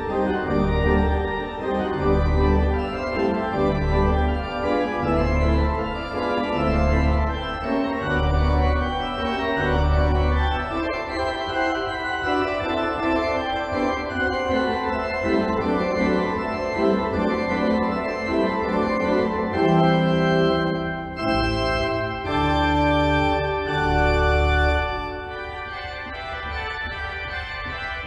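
Organ music with held chords; for the first ten seconds or so a low bass note pulses about once a second, then the bass drops out, and the music turns quieter near the end.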